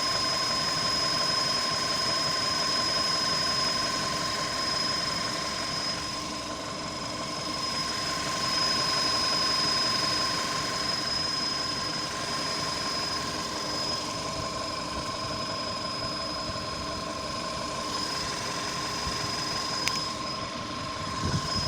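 Volkswagen Polo Sedan's CFNA 1.6-litre four-cylinder petrol engine running at a steady speed, with a steady whistle of unchanging pitch from the accessory-belt idler (bypass) pulley.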